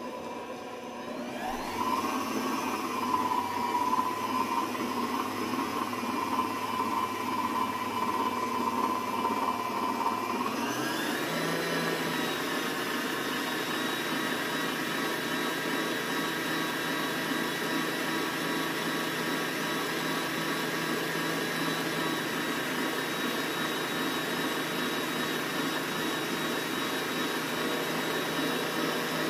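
Stand mixer motor running as it creams the cookie ingredients together. It makes a steady whine that climbs in pitch about a second in, then steps up to a higher speed about ten seconds in and holds there.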